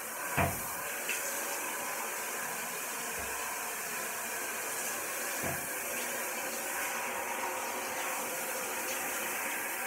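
Handheld shower head spraying water in a steady hiss over a dog's coat, with a few dull knocks at about half a second, three seconds and five and a half seconds in.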